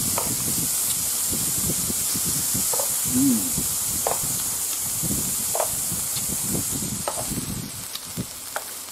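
Beef slices sizzling on an electric indoor grill plate: a steady frying hiss with a few short crackles. The sizzle thins out over the last couple of seconds as the meat is lifted off the plate.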